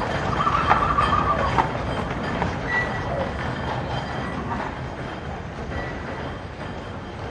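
Train running on rails, a steady rattle and rumble with a brief high wheel squeal in the first second or so, slowly fading.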